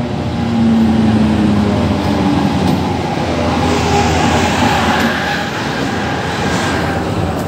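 ZSSK class 757 diesel-electric locomotive hauling a passenger train alongside the platform. Its engine runs, and the train rumbles on the rails as it passes close by, getting louder about half a second in.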